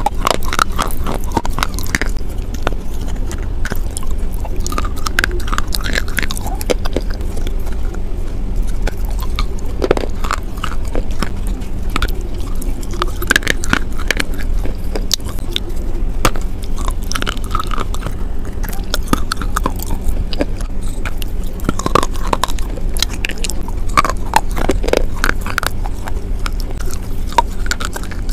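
Close-miked chewing of a mouthful of edible clay paste: sticky, wet mouth sounds broken by many sharp crunches and crackles.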